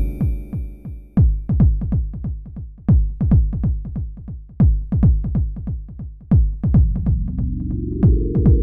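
Electronic noise/dark ambient music: an uneven run of deep electronic drum hits, each starting sharply and dropping in pitch. About a second from the end a low drone comes in and rises.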